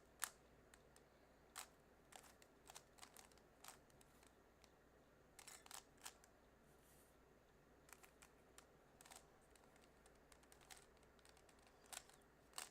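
Faint, irregular plastic clicks of a Rubik's cube's layers being turned and handled, a dozen or so scattered snaps with near silence between.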